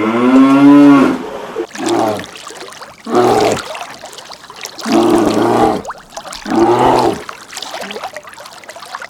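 Cattle mooing: one long, loud call that rises and falls in pitch, then four shorter calls spaced about a second and a half apart.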